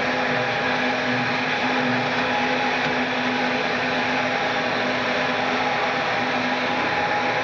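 Sheffield Model 121 Microform grinder running under power: a steady motor hum with a constant hiss. A faint low throb pulses a little faster than once a second in the first couple of seconds.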